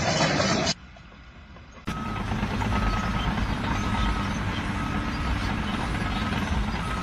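A heavy vehicle's engine running steadily, with a reversing alarm beeping faintly about once a second. Under a second in, an earlier loud noise cuts off; after about a second of quiet, the engine and beeps start abruptly.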